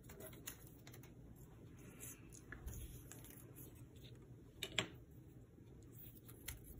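Quiet handling of paper scraps and a small metal ruler on a cutting mat: faint rustles and light taps, with one sharper tap a little under five seconds in.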